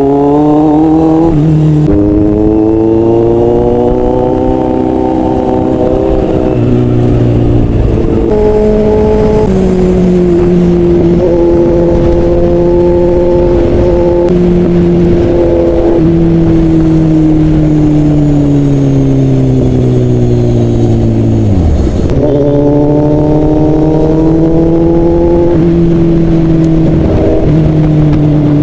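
Loud Kawasaki Z800 inline-four engine under way, accelerating through the gears: the pitch climbs and drops at each upshift, then holds a long, slowly falling note. About 22 seconds in the note dips sharply, then climbs again.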